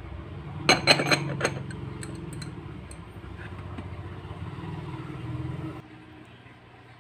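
A small aluminium pot lid clinks against a tiny metal pot several times in quick succession about a second in, with a few lighter clicks after. A steady low hum runs underneath and drops away near the end.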